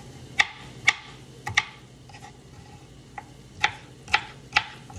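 Dull kitchen knife chopping green pepper on a cutting board: about seven sharp knocks, roughly half a second apart, with a pause of over a second in the middle.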